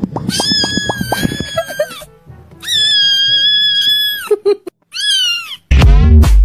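A kitten meme sound: three long, high-pitched kitten screams, each held and then falling away, over a beat. Near the end, loud bass-heavy electronic dance music cuts in.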